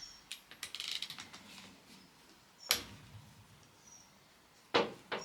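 Spanner work on the Votex topper gearbox's rear plug: a run of small metallic clicks, then a sharp knock about halfway through and two more knocks near the end.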